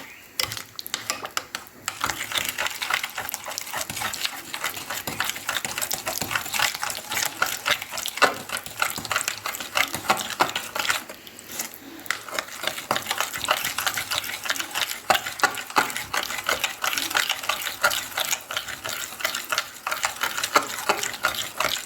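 Whisk beating a thin batter in a mixing bowl: rapid, irregular clicking and scraping against the bowl, with a short pause about eleven seconds in.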